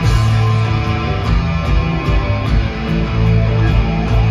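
A live rock band playing: electric guitars and bass over drums with a steady beat, heard loud from among the crowd in the hall.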